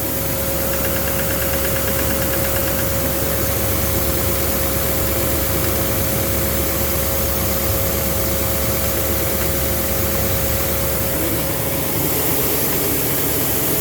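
Duramax LMM 6.6-litre V8 turbo-diesel in a 2009 Silverado 3500, idling steadily on a cold start, with a steady whine over the engine note. A cold start is when the owner hears an intermittent knock, which he thinks comes from the engine and possibly the bottom end.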